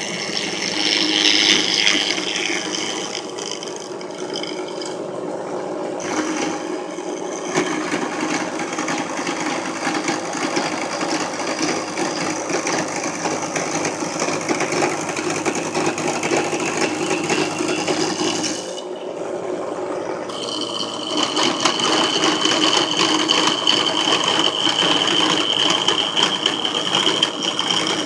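Drill press running a 5/8-inch end mill that side-cuts plastic cutting-board material, a continuous rattling chatter of the cutter biting the plastic. The cut eases briefly about two-thirds of the way in, then resumes with a steady high whine over the chatter.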